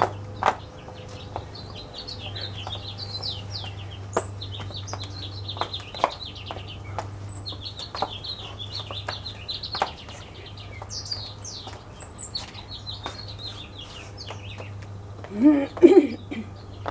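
Small backyard birds chirping and twittering in quick runs, over a steady low hum, with sharp taps of high heels on stone paving scattered throughout. Near the end comes a brief, louder voice-like sound.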